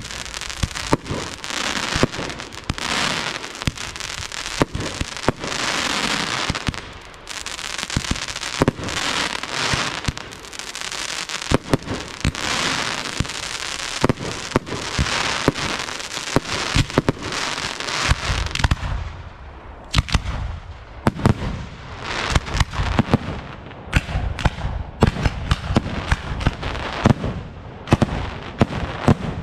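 Aerial fireworks display: waves of dense crackle and hiss cut by many sharp bangs. About two-thirds through, the crackle thins and a rapid series of deep bangs from shell bursts takes over.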